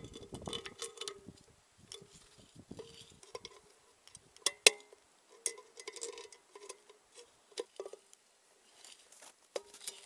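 Pliers gripping and bending the metal tabs inside an opened refrigerator compressor housing, with scattered metallic clicks and clinks. The sharpest click comes about four and a half seconds in.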